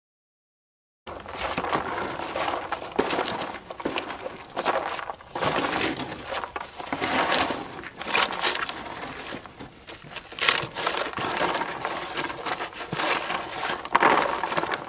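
A horse grazing close by, with irregular crunching and rustling as it picks at the ground and chews. It starts about a second in.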